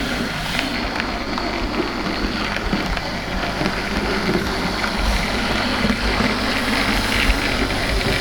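Bachmann GWR 64XX pannier tank model locomotive running on the track, pushing a model autocoach: a steady motor whirr and the rumble of wheels on rails.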